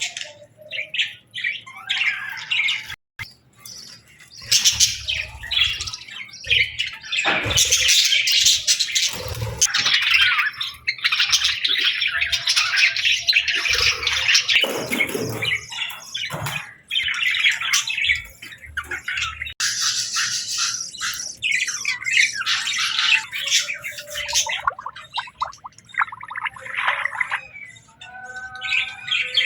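Budgerigars chirping, chattering and squawking, many calls overlapping in a continuous busy stream.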